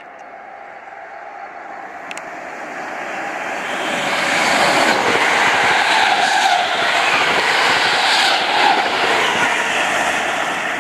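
British Rail Class 317 electric multiple unit passing through a station at speed. The noise builds over about four seconds as it approaches, stays loud while the carriages go by, then eases slightly near the end.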